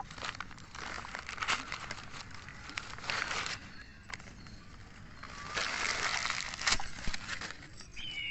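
Newspaper crinkling and rustling as it is pulled off small terracotta clay pots, in two bursts with a quieter gap between. A few light sharp knocks come as the clay pieces are set down on the ground.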